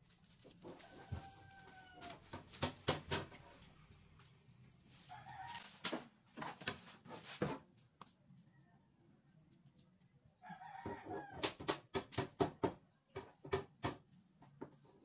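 Large paper pattern sheets being handled and smoothed flat on a tile floor: clusters of rustling and crinkling. A short animal call sounds in the background about a second in, and again around the middle and near the two-thirds mark.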